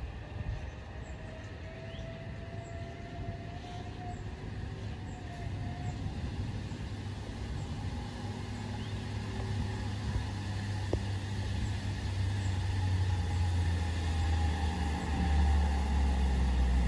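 Diesel engine of a loaded Mitsubishi Fuso dump truck pulling slowly up a steep climb, its low rumble growing steadily louder as it approaches.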